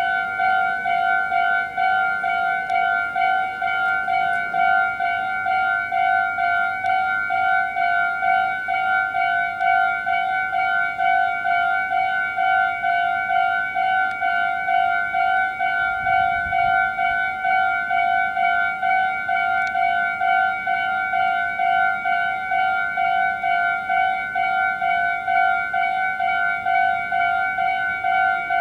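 Japanese railway level crossing's electronic warning bell ringing, one steady high note pulsing in an even rhythm: the alarm that the crossing is closing for an approaching train.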